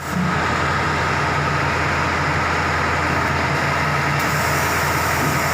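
Diesel engine running steadily under load, a continuous low hum with a broad mechanical noise over it, from a rice combine harvester being driven onto a truck.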